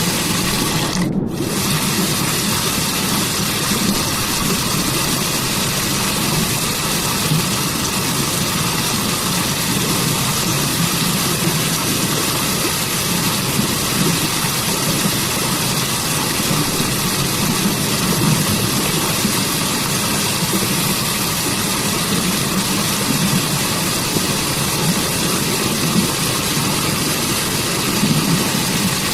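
Waterfall water rushing in a steady, unbroken roar of white-noise-like hiss. The high hiss drops out for an instant about a second in.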